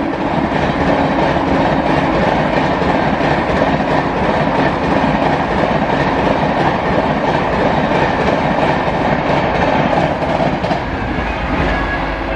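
Express passenger train passing close by at high speed, a loud, steady rush of wheels and coaches with a fast clickety-clack over the rail joints, easing off slightly near the end.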